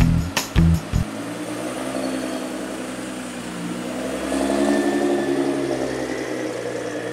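Nissan GT-R's twin-turbo V6 pulling away under throttle. The engine note rises about three seconds in and eases off again near the end, after a second of music with a heavy beat at the start.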